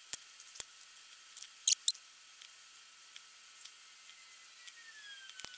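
A few sparse light clicks and short high squeaks as bolts are picked up and fitted into the bolt holes of a carbon fibre forge mould by gloved hands.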